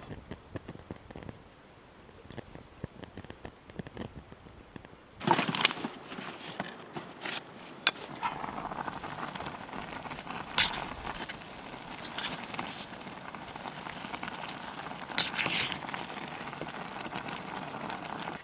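Small wood-burning camp stove crackling under a steel cooking pot, with sharp metallic clinks as the pot lid and spoon are handled. A steadier hiss joins from about eight seconds in.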